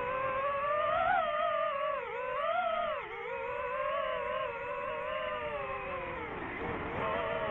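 DJI FPV drone's motors and propellers whining in flight, the pitch rising and falling with throttle: up about a second in, dipping twice between two and three seconds in, and settling lower near the end.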